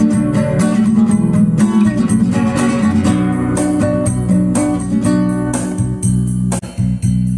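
Background music led by plucked guitar with a steady beat; it drops out briefly near the end.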